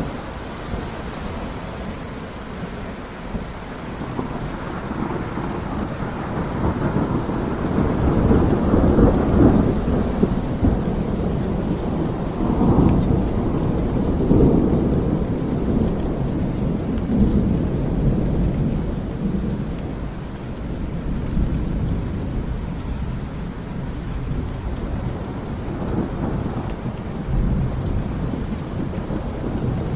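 Steady rain with wind, deep low swells rising and falling several times, the strongest around the middle.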